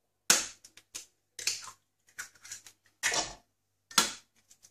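Eggs cracked against the rim of a food processor's stainless steel bowl: a few sharp taps and clicks, the loudest near the start, about three seconds in and near the end.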